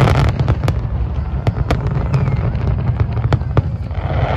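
Fireworks display: many sharp bangs and crackles from bursting aerial shells, scattered irregularly over a constant low rumble of distant explosions.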